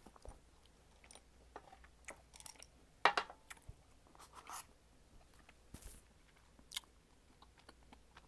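Faint, scattered clicks and crackles close to the microphone, with a louder crunch-like burst about three seconds in.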